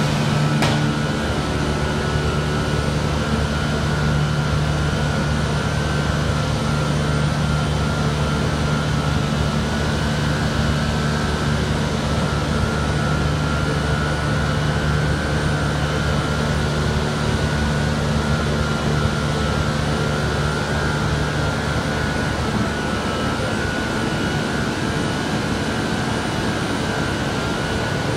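Bank of Vacon NXP 900 kW variable-frequency drive cabinets running, their cooling fans rushing with a steady low hum and a thin, higher whine over it.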